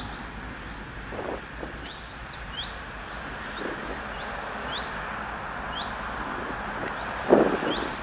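Small birds chirping again and again over a steady rushing background noise, with a brief louder burst of lower noise about seven seconds in.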